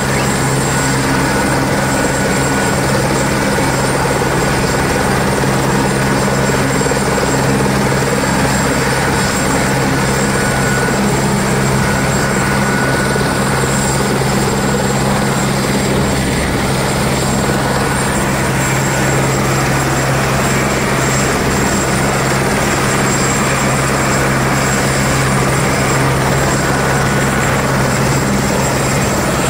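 Airbus light helicopter running on the ground with its rotors turning: a steady high turbine whine over a low, constant rotor hum.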